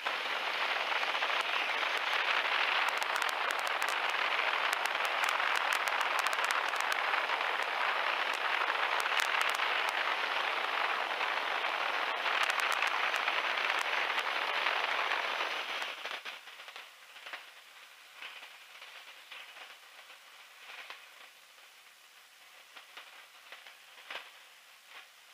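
Steady rushing wind noise in the open cockpit of a biplane in flight. About sixteen seconds in it drops suddenly to a much lower hiss broken by light crackling.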